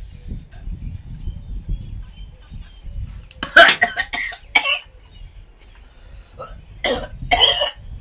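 A man coughing hard after gulping a strong gin drink: a fit of three coughs about three and a half seconds in, then two more near the end.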